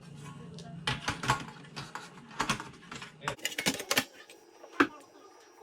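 Irregular clicks and knocks of hard plastic and metal parts of a Dell Inspiron all-in-one computer being handled and fitted together by hand.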